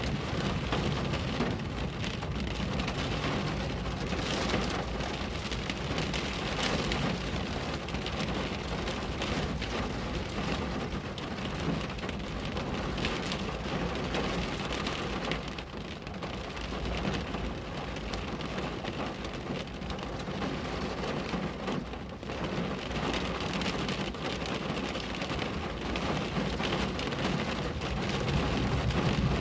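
Steady rain falling on a window, with a constant low rumble underneath.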